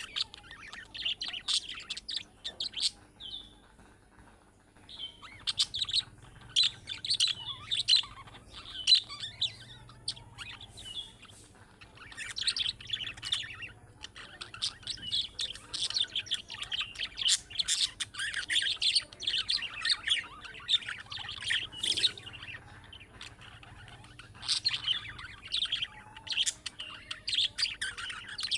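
Budgerigars chattering and warbling in quick runs of chirps and trills, with a short lull about three seconds in.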